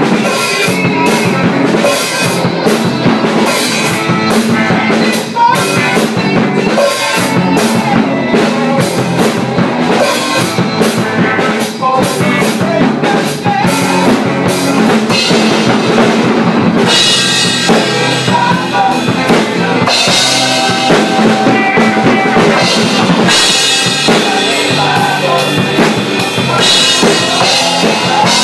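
Rock band playing live in a small room: a drum kit pounding, with bass guitar and electric guitar. The cymbals ring out louder from a little past halfway.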